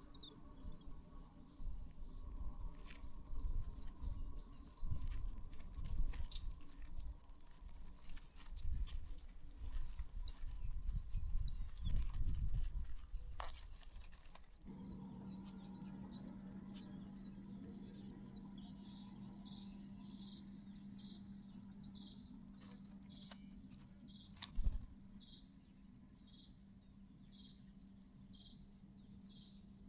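Baby birds in the nest chirping in rapid, repeated high-pitched calls, about two a second, loud at first. About halfway through, the calls turn fainter and sparser over a low steady hum, with a single thump near the end.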